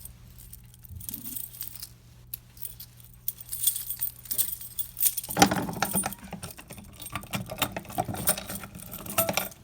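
A bunch of keys jangling and clicking as the key for a Notifier fire alarm pull station is handled and worked into its reset lock. The rattling grows louder and busier, with sharp clicks, from about halfway through.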